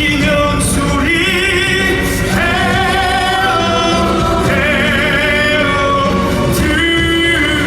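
Musical theatre singing over instrumental accompaniment: long held notes with vibrato, moving to a new pitch every second or two.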